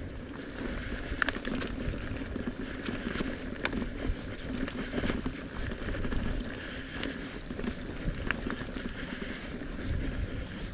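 Mountain bike being ridden over dirt and grass trail: a continuous rolling rumble from the tyres, with frequent small clicks and rattles from the bike as it goes over bumps.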